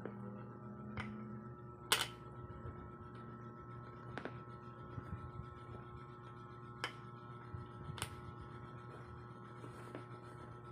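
Wooden shape-sorter blocks clicking against each other as they are picked up and handled, about five sharp clacks a second or two apart, the second one loudest, over a steady low hum.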